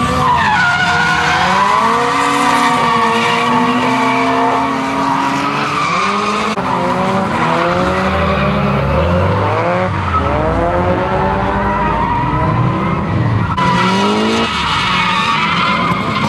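Drift cars sliding around a skid pad: engines revving up and down hard over tyre squeal, in three edited clips that cut about six and a half and thirteen and a half seconds in.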